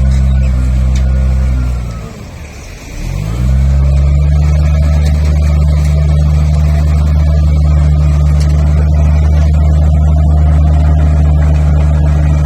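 Bulldozer's diesel engine running steadily. About two seconds in it drops in pitch and loudness, then climbs back up to its working speed within about a second and a half.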